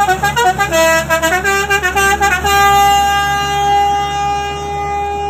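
Truck's musical horn playing a quick run of short notes that step up and down, then holding one long steady note from about two and a half seconds in, over a low steady engine hum.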